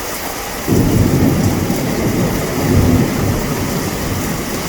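Heavy rain falling steadily. Under it, a loud low rumble of thunder breaks in suddenly about a second in and fades away after about three seconds.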